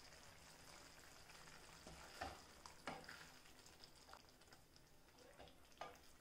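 Very faint: a wooden spatula stirring thick egg curry in a metal kadai, giving a few soft knocks and scrapes against the pan from about two seconds in, over a faint steady hiss of the simmering curry.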